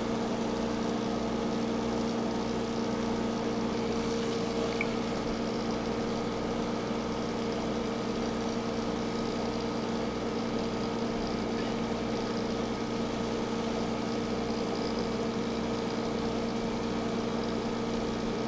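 Aquarium air pump and water-current pump running, a steady hum with an even hiss of moving, aerated water.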